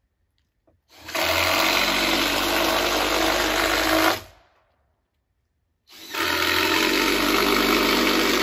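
Power drill driving screws into the timber post and beam, run twice for about three seconds each, starting and stopping sharply.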